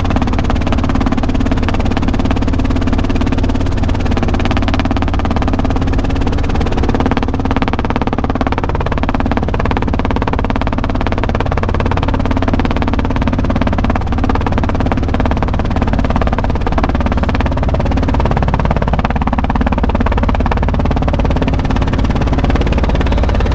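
Robinson R22 helicopter cabin noise during a landing approach: the piston engine and rotors drone steadily.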